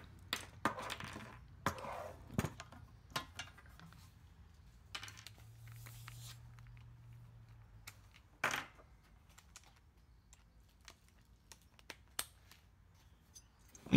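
Scattered light clicks and knocks of small engine parts and tools being handled on a workbench, busiest in the first few seconds. A faint low hum runs for a few seconds in the middle, and there is a single knock about eight and a half seconds in.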